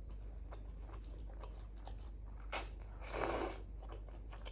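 Close-miked eating: a person chewing and biting food, with small wet mouth clicks, a sharper click about two and a half seconds in and a short hissing intake of breath or slurp just after three seconds.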